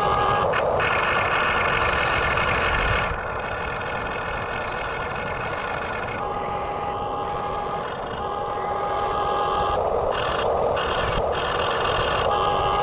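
Radio-controlled excavator's small electric motors running with a steady whine, which drops in level about three seconds in and comes back up near the end.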